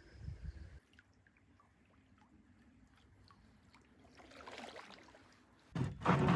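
Canoe paddling on calm water: low knocking and splashing at the start, then faint drips and ticks and a soft paddle swish. A loud burst of noise comes near the end.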